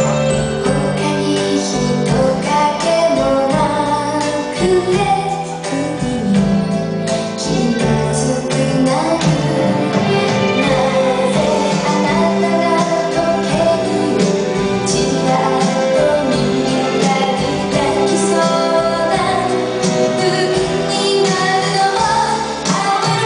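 A woman's singing voice, sung into a handheld microphone over instrumental backing music, continuing without a break.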